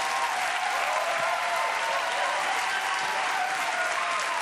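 Studio audience applauding steadily, with cheering voices mixed into the clapping.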